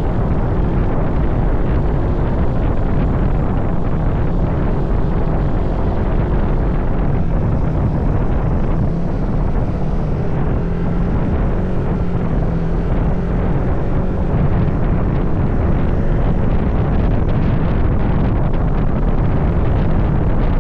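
Steady drone of a moving vehicle's engine mixed with wind noise on the microphone. It holds constant, with no rev changes or breaks.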